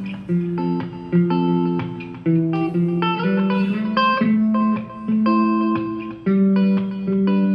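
Background music: a guitar playing a melody of plucked notes, several notes a second.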